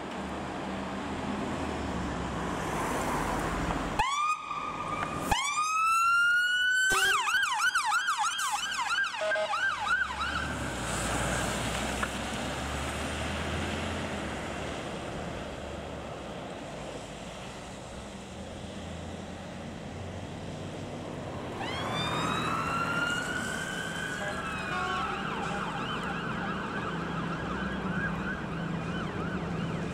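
Fire engine siren starting up: the pitch winds up sharply twice about four seconds in, then switches to a fast yelp for a few seconds and eases off. Past twenty seconds it winds up again into a steady wail, over the low rumble of the engine and road.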